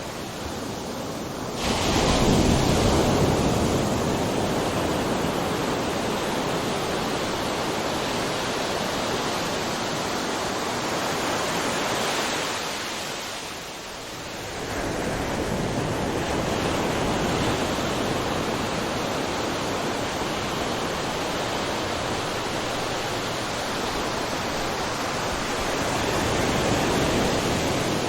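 Ocean waves crashing on a shore, a continuous rushing wash of surf. A wave breaks suddenly about two seconds in, the wash ebbs to a brief lull near the middle, and the next waves roll in again.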